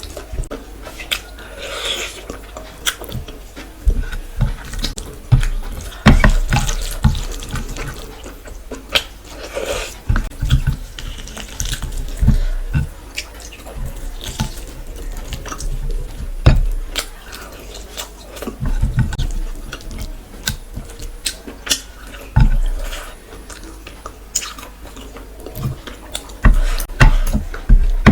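Close-miked eating of chicken curry and rice: irregular wet chewing, lip smacks and squelching mouth sounds, with many short clicks and soft low thumps.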